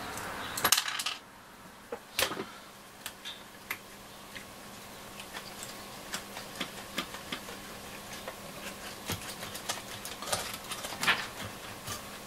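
Scattered small clicks, taps and metallic rattles as hands and a screwdriver work the metal chassis and circuit board of a Nordmende Transita transistor radio out of its case. The loudest clatter comes about a second in, and a faint steady hiss stops at about the same point.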